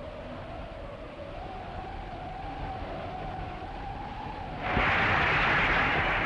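A faint, wavering held tone, then about three-quarters of the way in a large crowd breaks into loud, steady cheering as the dance ends.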